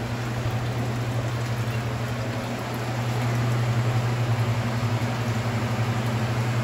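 Steady low machinery hum over an even hiss, growing slightly louder about halfway through.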